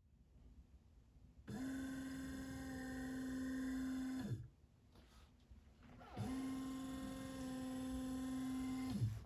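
Electric drive motor of a 3D-printed bag-valve-mask ventilator running in two steady humming strokes of about three seconds each, a quieter pause between them, each ending with a brief dip in pitch: the machine cycling through breaths.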